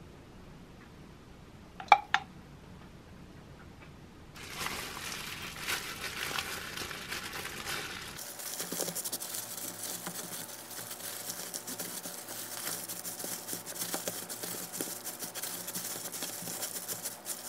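Two sharp taps about two seconds in, then disposable plastic food gloves crinkling and rustling steadily as gloved hands roll a gimbap and squeeze it in a bamboo rolling mat.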